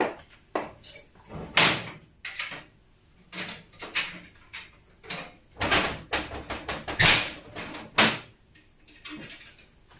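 Locks and bolts of a metal door and security gate being unlocked and drawn back by hand: a string of metallic clicks, clanks and rattles, with the loudest clanks about one and a half, six, seven and eight seconds in.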